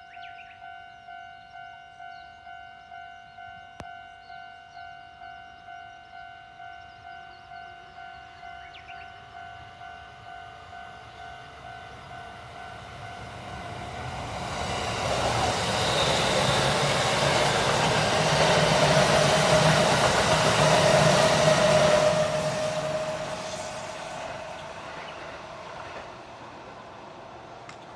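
Japanese railway level crossing's electronic warning bell ringing in a steady rhythm, about two strokes a second. A train then comes through, its running noise rising from about halfway in, loudest for several seconds and then fading away. After the train has passed the bell is no longer heard.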